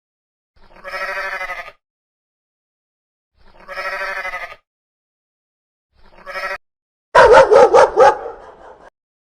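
Goat bleating three times, each a quavering call of about a second or less. Near the end, a dog barks in a quick run of several barks, louder than the bleats.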